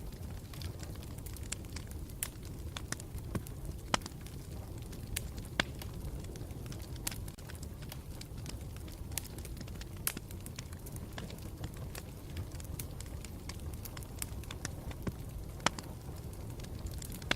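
Campfire burning steadily, with a low rumble of flame and frequent irregular sharp crackles and pops of burning wood.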